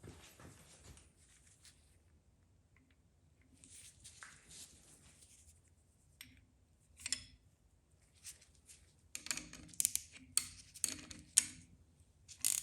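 Metal-on-metal clinks and clicks of wrenches and a gear puller as the puller's nut is cinched down on an LT1 water pump drive gear. A few scattered taps at first, then a quick run of sharp clicks and knocks over the last few seconds.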